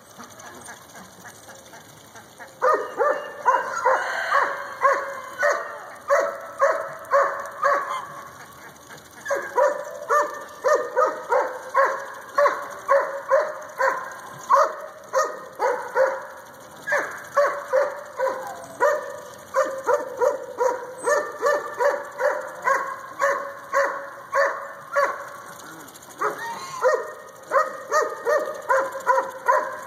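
A dog barking over and over, about two barks a second, in long runs. The runs pause briefly twice.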